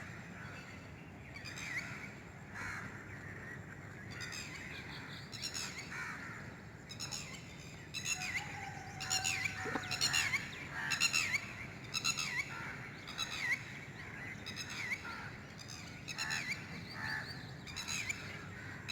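Birds calling in the early morning: many short calls, repeated and overlapping, with quick rises and falls in pitch.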